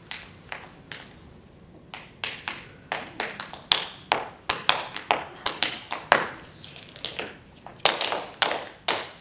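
Metal-tipped tap shoes striking a hard floor in a tap-dance rhythm. A few spaced taps come first, then a pause of about a second, then a quick, dense run of taps.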